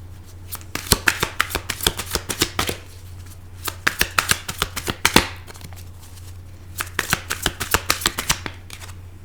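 A tarot deck being shuffled by hand: three runs of quick card clicks and slaps, with a steady low hum underneath.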